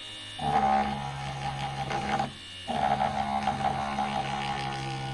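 Mini cordless rotary tool's motor running at a steady pitch in two runs of about two seconds each, with a short stop between, as a drill bit is pressed against a hard material.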